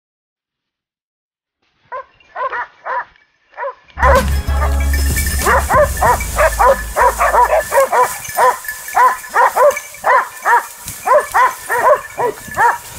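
Pack of hunting dogs barking and baying in quick repeated barks at a wild boar held at bay. The barking starts faintly about two seconds in, becomes loud and nearly nonstop at about four seconds, and a low rumble sits under it for a few seconds.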